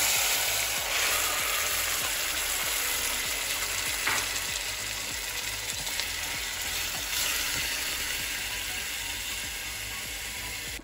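Diced tomatoes sizzling in hot oil with fenugreek seeds in a stainless steel pot. The sizzle fades slowly as the tomatoes cool the oil, and a wooden spatula scrapes now and then as they are stirred.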